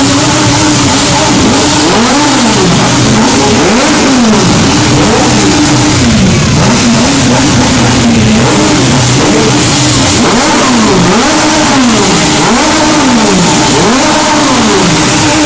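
Benelli Tornado 900's three-cylinder engine revved hard over and over, its pitch climbing and dropping about once a second.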